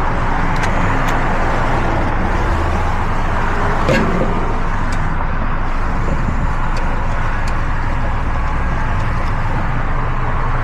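Steady road traffic noise from vehicles going by, with a few light clicks and one sharper knock about four seconds in.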